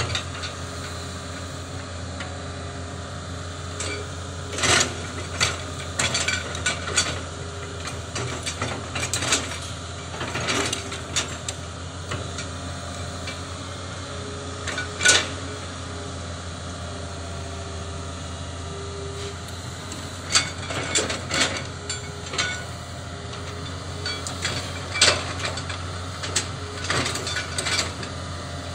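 Excavator engine running steadily with a low drone, while the digging arm and bucket give off irregular metallic clanks and knocks as it works the soil of a terrace.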